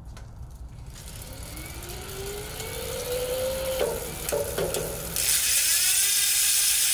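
Mid-drive e-bike motor and drivetrain whirring as the cranks turn: a whine rising in pitch, a few clicks, then about five seconds in a sudden, louder, steady rushing whir.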